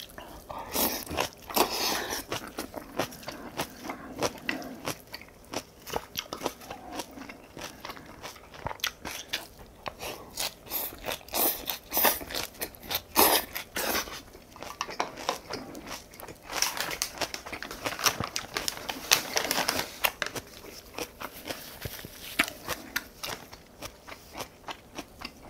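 Close-miked chewing and crunching of spicy kimchi, with many sharp wet mouth clicks and smacks.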